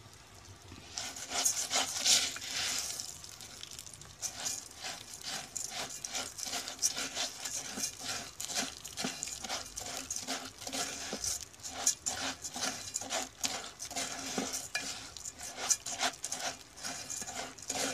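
Plastic spoon stirring dry rice and browned spaghetti pieces in hot oil in a metal pot, with repeated quick scraping strokes of grains against the pot and a light sizzle. A louder sizzling hiss comes about a second in. This is the stage where the rice is coated and toasted in the oil before the water goes in.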